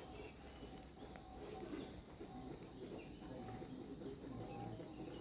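Faint forest ambience: a steady high-pitched insect drone, with short faint calls every second or so and low rumbling underneath.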